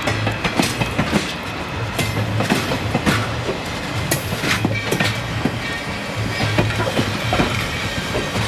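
Railroad cars (wooden-style cabooses and a heavyweight passenger coach) rolling past on steel wheels, clacking and clanking irregularly over the track, with a low hum that swells and fades underneath.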